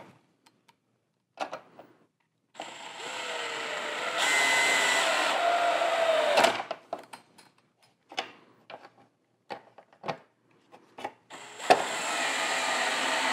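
Cordless drill driving the mounting screws that fasten a fog light into a plastic front bumper. One run of about four seconds begins about two and a half seconds in, and its pitch rises before it stops. Scattered light clicks follow, and a second run begins near the end.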